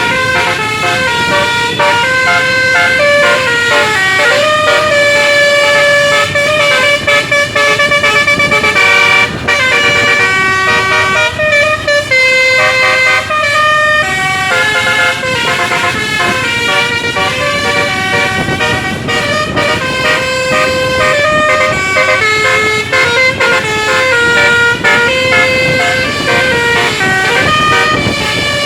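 Basuri 'telolet' bus horn, a multi-trumpet musical air horn, playing a continuous melody of stepped notes one after another with only brief breaks.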